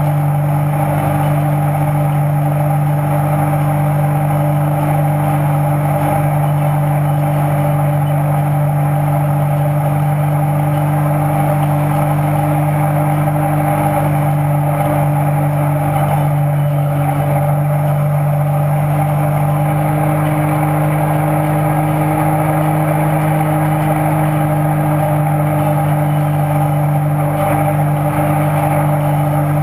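Wake boat's inboard engine running steadily at wakesurfing speed, over the rush of the breaking wake; its pitch rises slightly about two-thirds of the way through.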